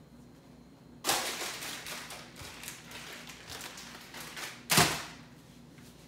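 A plastic snack packet crinkling as it is handled, then a sharp smack near the end as it is dropped into the frying pan.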